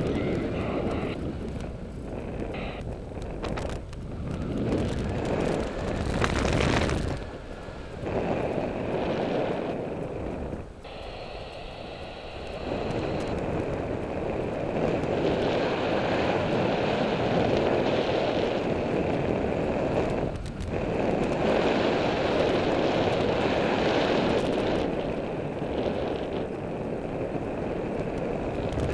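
Airflow buffeting the microphone of a paraglider in flight: a steady rushing rumble that swells and drops in gusts.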